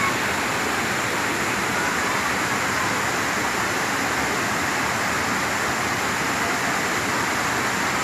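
Multi-tiered waterfall pouring steadily into a pool: a constant, even rush of water with no breaks.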